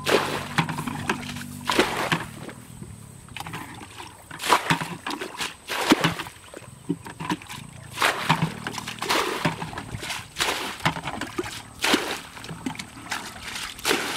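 A plastic bucket scooping muddy water from a shallow pit and pouring it out onto the ground, bailing the pit out. It makes a splash and slosh about every one to two seconds.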